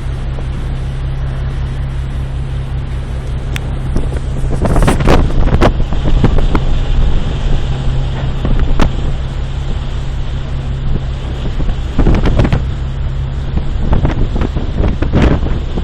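Steady low drone of a ship's engine under wind noise on a stormy sea. Louder rushes of wind and waves come about five seconds in and twice more near the end.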